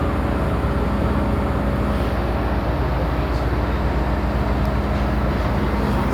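MTR M-train running, heard from inside the passenger car: a steady, loud rumble of wheels and running gear with a few constant hums underneath.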